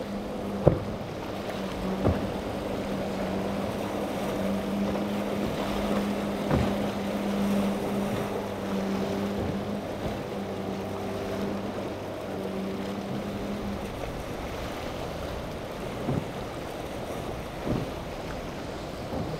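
A motorboat's engine running steadily at speed through rough chop, over a constant wash of wind and breaking waves; the engine hum drops away about two-thirds through. Several sharp thuds, the loudest about a second in, as the hull slams down on the waves.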